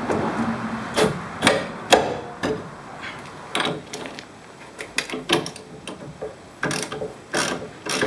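Socket wrench on the big nut of a Holden Commodore's front radius rod: irregular sharp metallic clicks and knocks as the 15/16 deep socket is fitted and the nut is broken loose.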